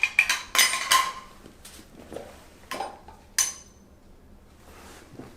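Sharp metallic clicks and clanks from chiropractic equipment, each ringing briefly: a quick cluster in the first second, then a few spaced clanks up to about three and a half seconds in.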